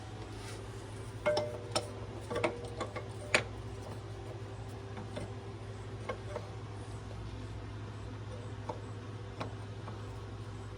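A run of sharp metal clicks and knocks from parts being handled and fitted on a skid steer's pintle levers, clustered in the first few seconds, then a few scattered ticks, over a steady low hum.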